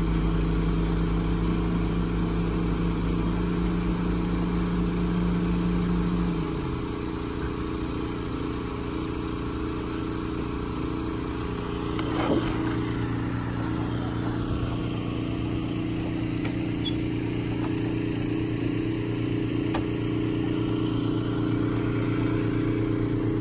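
Mini excavator engine and hydraulics running steadily. About six seconds in, the strongest low hum drops away and the machine settles to a lower, quieter run, with one faint knock later on.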